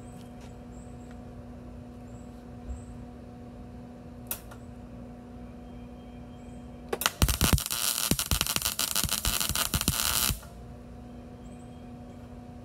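Lincoln MIG welder's arc crackling for about three seconds, starting about seven seconds in, as a tack weld is laid joining stainless steel sheet to carbon steel plate with a carbon steel wire. A steady hum runs under it, with a couple of short clicks before the arc strikes.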